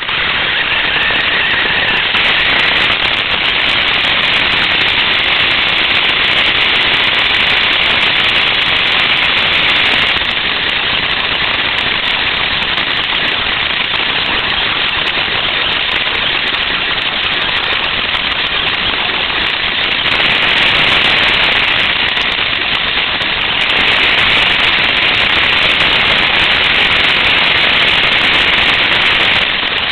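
Radio-controlled car driving over grass and gravel, heard from its onboard camera: a steady, dense crackling rattle of the chassis and drivetrain shaking over rough ground. It gets louder and harsher in stretches.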